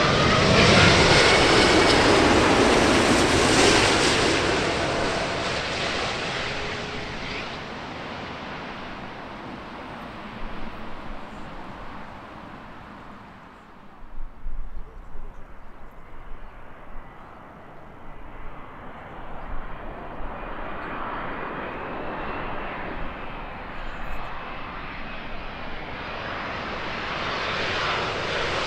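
Jet airliner on final approach passing low overhead: its engine roar is loudest in the first few seconds and fades away over about ten seconds. Another approaching jet builds up from about two-thirds of the way in, with a thin steady engine whine over the roar, and grows louder toward the end.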